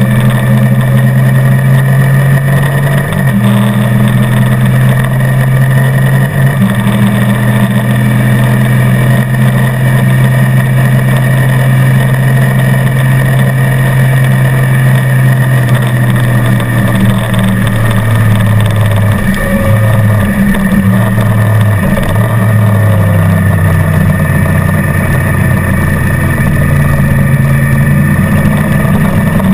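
Motorcycle engine running at speed on a race track with two people aboard, loud and steady. The engine note breaks and steps briefly a few times, clustered about two-thirds of the way through.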